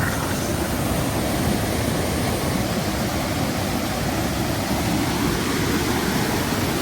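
Mountain waterfall rushing in a steady, unbroken roar of water, running high after heavy rain.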